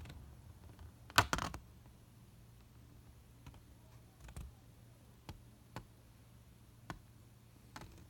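Scattered light clicks and ticks of a paper warranty card being handled and flexed, the loudest pair about a second in, then fainter single ticks every second or so.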